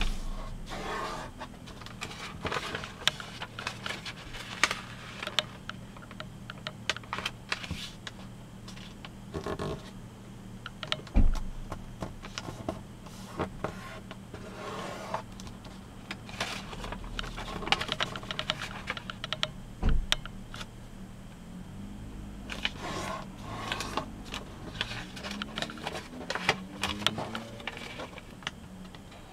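A sheet of origami paper being folded by hand on a tabletop: irregular crinkling and rustling as the paper is handled and creases are pressed flat, with two sharper thumps partway through. A steady low hum runs underneath.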